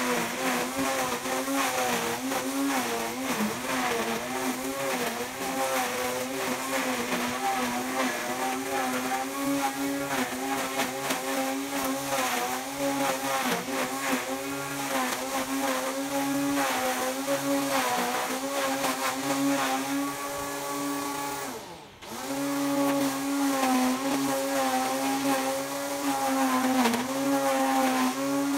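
A grass-cutting machine's motor runs under load, its pitch wavering up and down as it cuts through grass. About 22 seconds in it slows sharply, almost stopping, then speeds back up.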